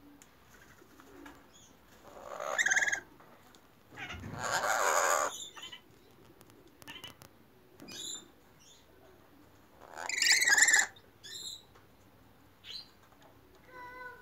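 Chattering lories squawking loudly: one call about two and a half seconds in and a longer one about ten seconds in, with a noisy burst lasting about a second around four seconds and scattered light ticks in between.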